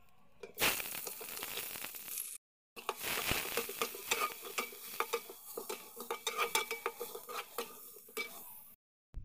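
Chopped onions and green chillies sizzling in hot oil in a metal pot, stirred with a slotted metal spatula that scrapes and clicks against the pot. The sizzle starts loud under a second in and cuts out briefly twice.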